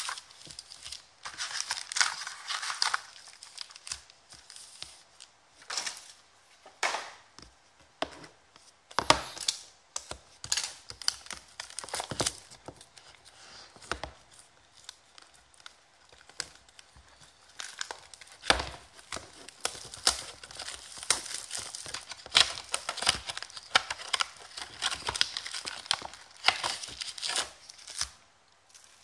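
Plastic shrink-wrap being torn and crinkled off sealed trading-card boxes by hand: irregular crackling rustles, broken now and then by a sharp knock.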